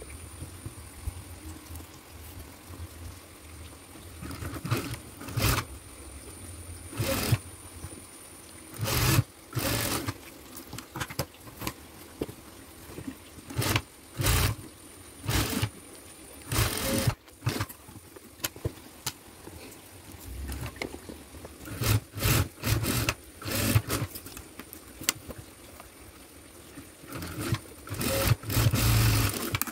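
Industrial sewing machine stitching fabric in short bursts of a second or less, stopping and starting many times as the seam is guided under the presser foot.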